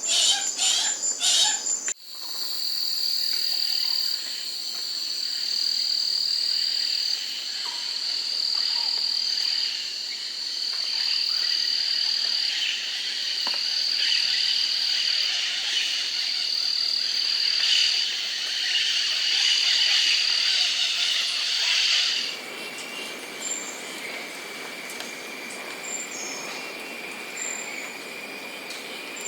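Tropical forest ambience of insects and frogs. It opens with a rapid, evenly repeated call. About two seconds in it cuts to a dense chorus of steady, high-pitched pulsing trills. About three quarters through it changes to a single steady high whine with scattered short chirps.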